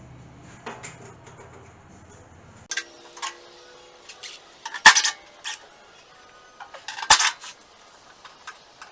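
Loose metal clinks and clanks from tools and panel hardware being handled, with a few sharp strikes; the two loudest come about five and seven seconds in. A low steady hum runs under the first few seconds and stops suddenly.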